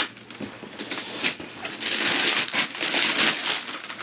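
Gift wrapping paper being torn off a cardboard box by a child's hands: a few sharp rips, then steady tearing and crinkling from about two seconds in.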